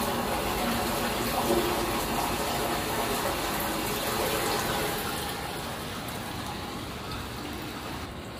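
Storm water gushing and churning in a street drain shaft under a displaced manhole cover, with the drain overloaded by a cloudburst. The rush is steady and grows fainter over the last few seconds.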